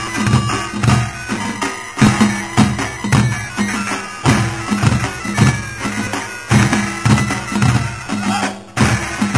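A Korean pungmul ensemble playing: heavy drum strokes about twice a second under a reedy wind instrument playing a wavering melody. There is a brief break near the end.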